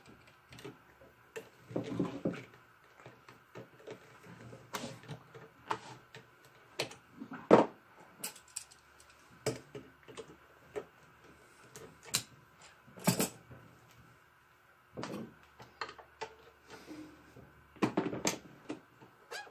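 Needle-nose pliers clicking and tapping on metal PEX-style hose clamps as they are spread and worked off tubing, with the odd knock from handling a copper water manifold. The clicks are sparse and irregular, the loudest about halfway through.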